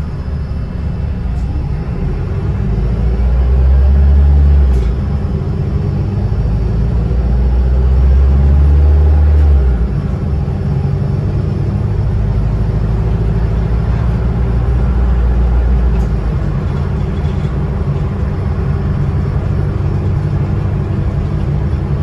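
Bus engine and running gear heard from inside the passenger saloon while the bus drives: a steady deep drone with road noise that swells twice, at about three and eight seconds in, as the bus accelerates, then settles to a steadier hum.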